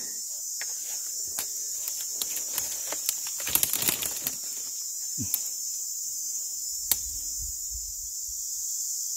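A steady, high-pitched insect chorus of crickets or cicadas, with scattered clicks and a short burst of rustling and clicking about halfway through, and one sharp click a few seconds later.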